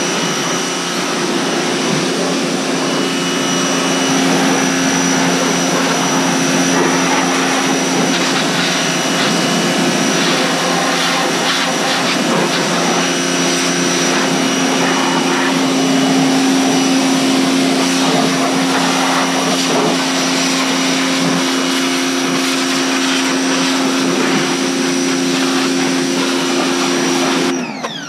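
A 2200 PSI pressure washer running: the steady hum of its motor and pump under the hiss of the water jet. It cuts off suddenly near the end.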